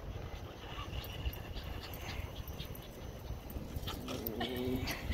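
A West Highland white terrier gives a short whine near the end, over a steady low rumble.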